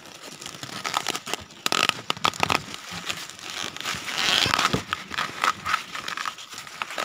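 Maize leaves and husks rustling and crackling right against the microphone as ears of corn are pulled off the stalks, with irregular sharp cracks.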